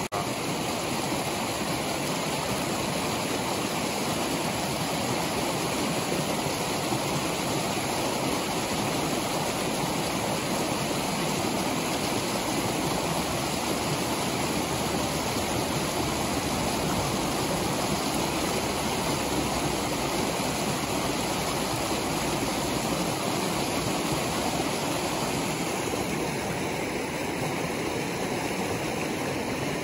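Shallow river rushing over rocks and small riffles: a steady sound of running water.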